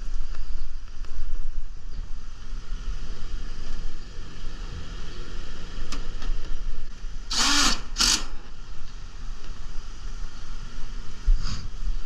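Outdoor AC condensing unit running after the repair, its compressor and condenser fan giving a steady hum and whoosh. Two short hissing bursts come about seven and a half and eight seconds in.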